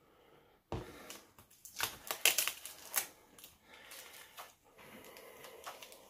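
Clicks, light rattles and rustling from hands handling plastic parts and a wire connector inside a dishwasher, with a sharp knock just under a second in and a flurry of clicks around the middle.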